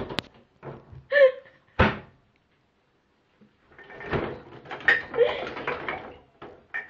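Cupboard doors being opened and shut: a sharp click and then a loud bang in the first two seconds, followed by a longer stretch of clattering.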